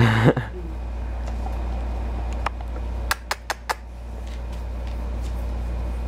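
A steady low hum, with a short loud burst right at the start and a quick run of four sharp clicks about three seconds in.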